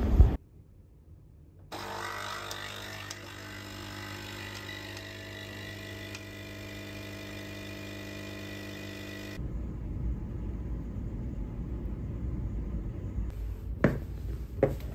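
Capsule espresso machine's pump humming steadily while it brews a cup, starting about two seconds in and cutting off suddenly about seven seconds later. Near the end, a few knocks of footsteps on wooden stairs.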